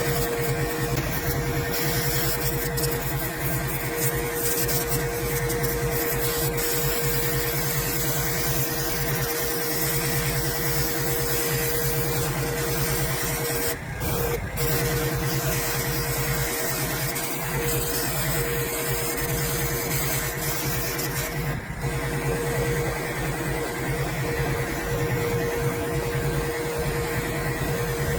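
Pressure washer running steadily, its motor and pump humming under the hiss of the water jet spraying a truck's bodywork, with two brief breaks in the sound about halfway through and again later on.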